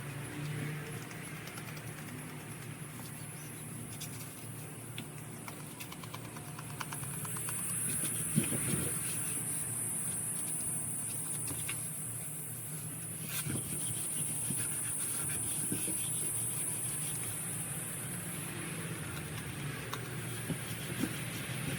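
Pressure washer running steadily, a low motor hum under the hiss of its high-pressure water spray; the spray hiss grows louder about a third of the way in.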